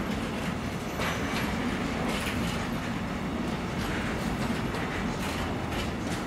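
Loaded container wagons of a freight train rolling past close by: a steady rumble of steel wheels on rail, with clacks roughly every second as wheelsets cross rail joints.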